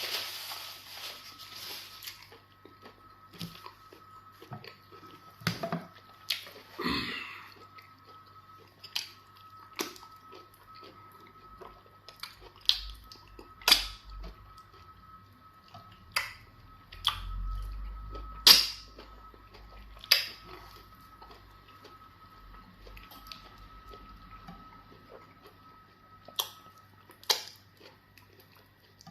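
Close-up eating sounds of a person eating amala fufu with okra soup: sharp wet mouth smacks and clicks every second or so, a few of them louder, over a faint steady high hum.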